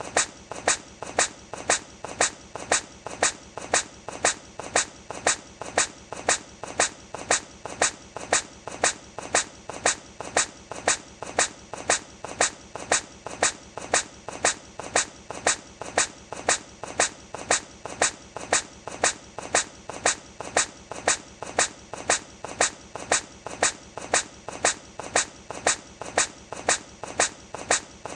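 A hedgehog sneezing over and over, the same tiny sneeze looped about three times every two seconds. Each sneeze is short, sharp and high-pitched, with a fainter sound just before it.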